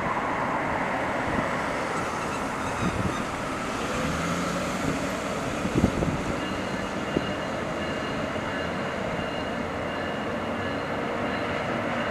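Stadler GTW 2/6 diesel multiple unit light-rail train pulling away on street track, its diesel engine and wheels running steadily, with a couple of clicks from the wheels over the rails around the middle. A faint high steady whine comes in about halfway through.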